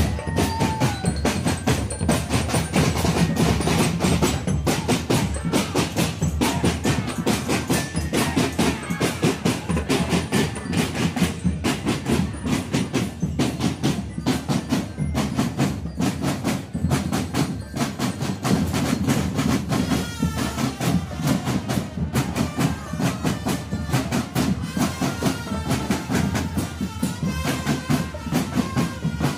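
Marching drumband playing on the move: snare drums, bass drums and crash cymbals beating out a fast, steady rhythm.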